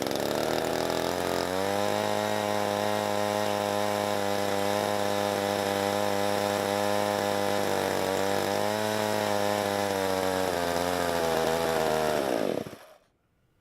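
Husqvarna Rancher 55 two-stroke chainsaw engine, freshly rebuilt with a new cylinder and piston, running steadily at low speed with its pitch wavering now and then, then sagging and dying near the end. It will not keep running because a missing impulse-line bushing keeps fuel from being drawn into the carburettor.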